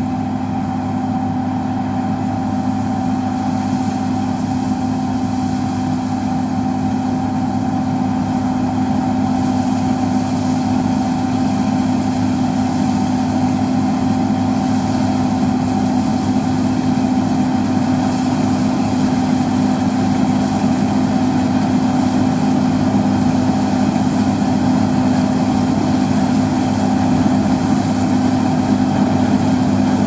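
John Deere S690i rotary combine harvesting barley, its diesel engine and threshing machinery running steadily under load with a constant hum. It grows slightly louder as the machine comes closer.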